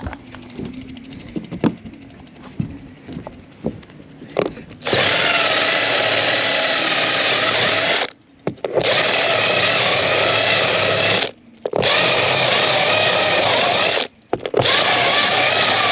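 Cordless drill with a step bit boring holes through a fiberglass hardtop, running steadily in four runs of two to three seconds each with short pauses between them. Before the drilling starts, about five seconds in, there are a few light knocks and taps.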